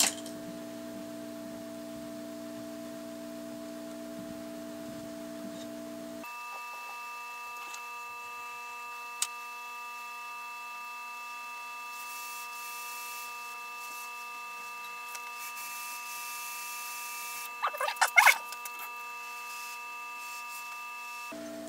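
Hot air rework wand's blower running with a steady hum. About six seconds in, the sound is sped up four times, so the hum jumps sharply higher in pitch, with a brief chattering burst near the end.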